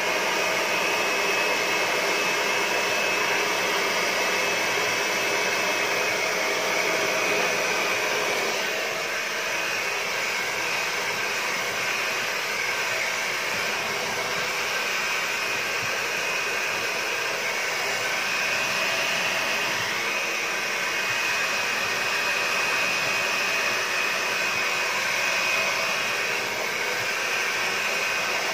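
Hand-held hair dryer running steadily, a rush of blown air with a high whine over it; the whine fades for a stretch in the middle and then returns.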